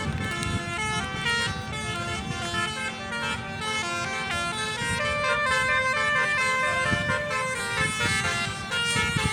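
Basuri 'telolet' bus horn playing a multi-note tune, its tones stepping up and down without a break, over a low rumble.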